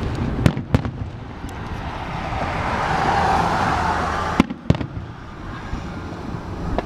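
Fireworks display: sharp bangs of shells bursting, a pair near the start and another pair about four and a half seconds in, with a swelling rush of noise between them.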